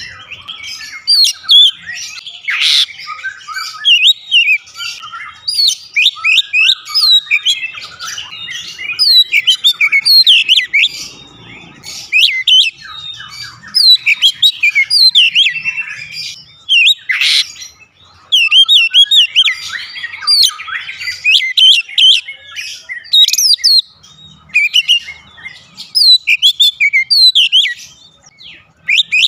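Oriental magpie-robin (kacer) singing loudly: fast, varied phrases of quick rising and falling whistled notes, broken by short pauses.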